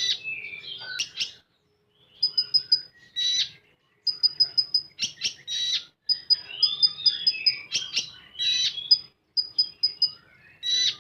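Common iora (konin) singing a fast, varied song: quick trains of short high repeated notes alternating with sweeping whistles and chattering phrases.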